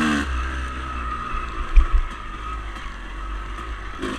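Dirt bike engine running at a low, steady speed, with wind rumbling on the microphone and a loud low thump just under two seconds in.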